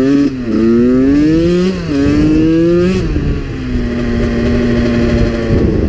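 2001 Suzuki RM80's 80cc two-stroke single-cylinder engine accelerating through the gears. Its pitch climbs and drops back at upshifts about a third of a second and two seconds in. About three seconds in the throttle eases, and it runs on at a steady lower pitch.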